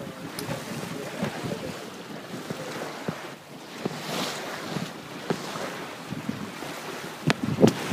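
Wind buffeting the microphone of a sailboat under way, over the wash of water along the hull, with a few sharper gusty crackles near the end.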